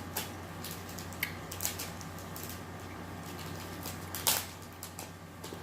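Light scattered clicks and taps of small plastic glitter containers being picked over and handled, with one louder brief noise about four seconds in, over a faint steady hum.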